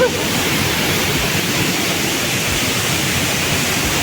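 Water falling at a waterfall close by: a loud, steady rush of noise.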